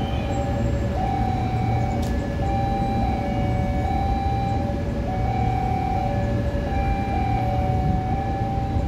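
Railway level-crossing warning alarm sounding a two-tone electronic signal, high and low notes alternating without pause, over a steady low rumble; it warns that a train is approaching.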